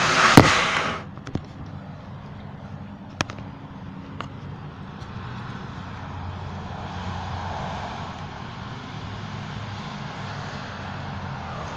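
A loud rush of handling noise in the first second as the phone is moved, then steady rain and wet-street hiss outdoors, swelling for a few seconds midway as a car drives along the wet road.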